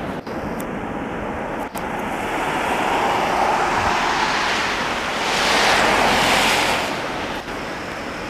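Jetliner on landing approach passing overhead: a broad jet-engine rush that swells to its loudest about six seconds in, then fades.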